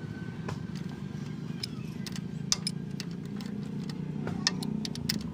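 Metal tools clinking against the clutch housing of a Piaggio Ape diesel three-wheeler: about ten sharp, irregular clicks, the loudest about four and a half seconds in. A steady low rumble runs underneath.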